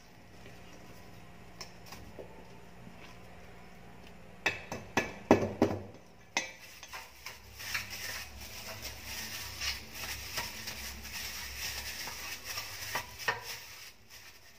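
A utensil knocking sharply against a stainless steel mixing bowl several times, about a third of the way in. Then a steady plastic crinkling and rubbing as a plastic-gloved hand spreads butter around a loaf pan, with small clicks.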